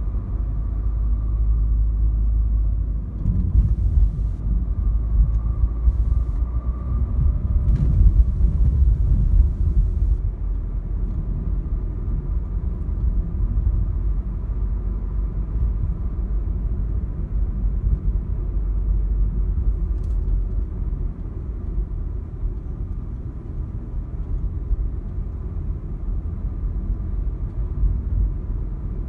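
Low, steady in-cabin rumble of a Renault Clio IV dCi 90, a 1.5-litre four-cylinder diesel, driving on city streets: engine and tyre noise heard from inside the car, a little louder for several seconds early in the stretch.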